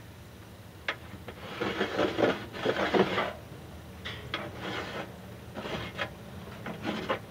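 Hands and arm rubbing and scraping against a window frame and plastic wall, in several bouts after a single click about a second in.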